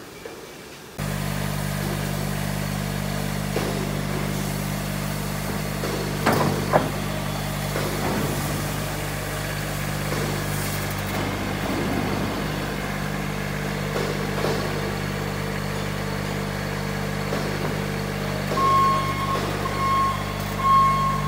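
Skid steer loader's engine running steadily, starting abruptly about a second in, with a couple of knocks about six seconds in as the machine works the pallet forks. Near the end a reversing alarm beeps repeatedly.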